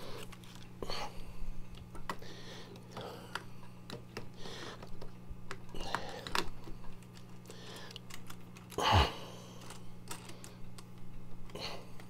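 Clicks, taps and rustles of tools and parts being handled and put down, over a steady low hum from the hot-air rework station's fan, left running to cool down. One louder thump about nine seconds in.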